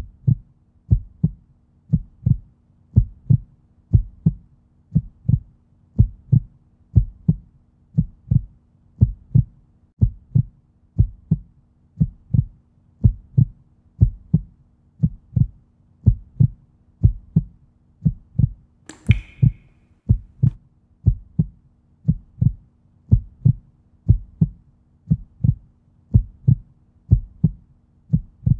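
Heartbeat sound effect: steady paired lub-dub thuds, about one beat a second, over a faint hum. A brief hiss comes about two-thirds of the way through.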